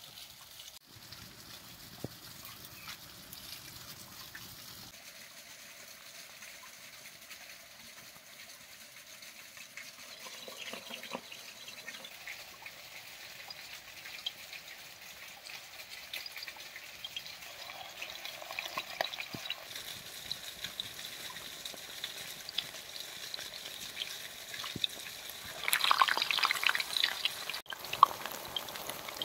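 Food frying in hot oil in a pan: a steady sizzle with scattered sharp crackles, growing louder and busier near the end.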